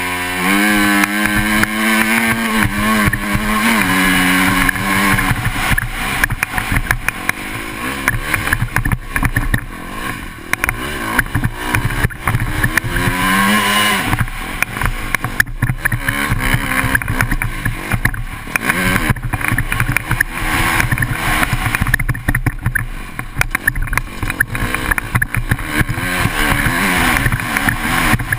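KTM 250 four-stroke motocross bike engine, heard on board, revving up as the bike pulls away from a standstill and then running hard around a dirt track. The engine note climbs and drops with the throttle and gear changes, including a clear step down about four to five seconds in and a rising rev again around halfway.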